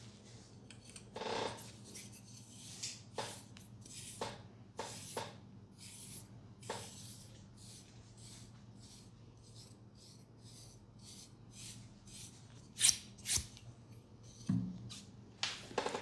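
Hands rubbing and scratching through short hair on the scalp during a head massage: a string of short, irregular scratchy strokes, the loudest two near the end.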